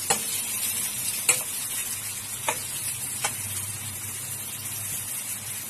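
Sliced onions sizzling as they fry in hot oil in a steel karahi, while a metal spatula stirs them and clinks against the pan four times in the first few seconds.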